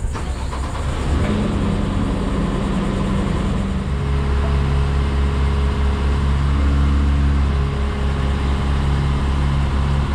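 An engine running steadily, its hum growing deeper and stronger about four seconds in.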